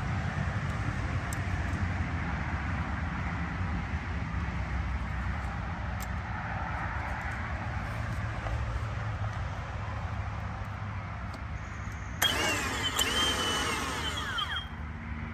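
Steady low outdoor rumble like distant traffic, with a brief rustling, scraping handling noise about twelve seconds in that lasts two or three seconds.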